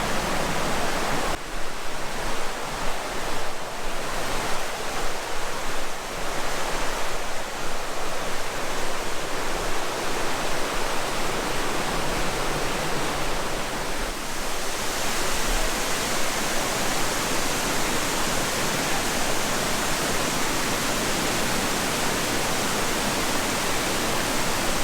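Rushing water, a waterfall or cascading mountain stream, making a steady, loud wash of noise that grows a little steadier and brighter about halfway through.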